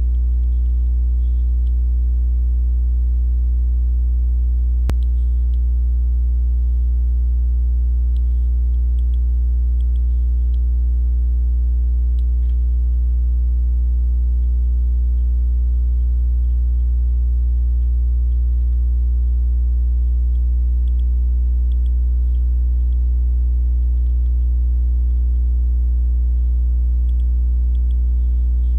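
Steady low electrical hum with a ladder of overtones, and faint scattered ticks; one sharp click about five seconds in.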